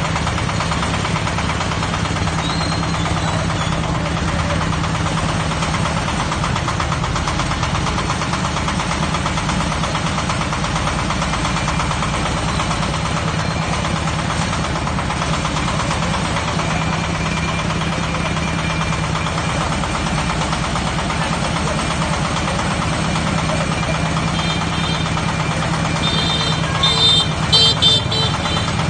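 Engine of a hydraulic well-drilling rig running steadily, with a few short high-pitched chirps near the end.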